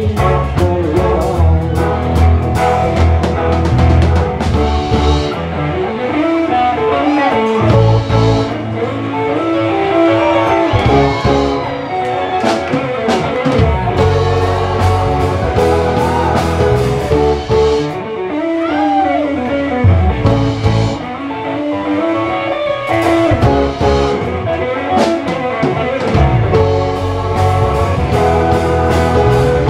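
Live band playing a funk jam: electric guitar, keyboards and drum kit, with some bent guitar notes.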